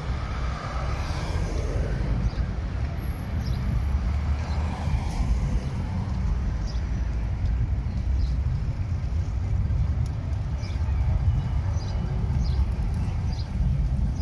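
City street traffic noise: cars passing close by over a steady low rumble.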